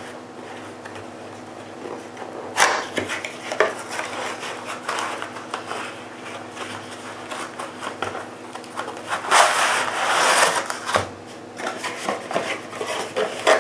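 A cardboard product box being opened and its contents handled: rubbing, scraping and rustling of cardboard and packing, with a sharp snap about two and a half seconds in and a longer, louder rasping slide near the ten-second mark.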